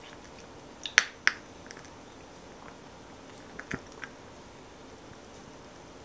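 Scattered sharp crackles and pops from a burning can of Sterno gel fuel under a mini s'mores maker. A cluster comes about a second in and a few more just before the four-second mark. The can is near empty, and that is why the fuel crackles.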